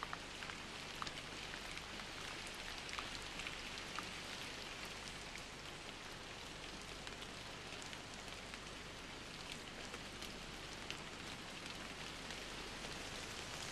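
Faint, steady rain-like hiss with many small scattered ticks, like drops falling on a surface.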